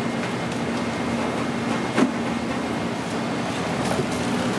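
Steady mechanical hum of kitchen equipment, with a single sharp knock about two seconds in.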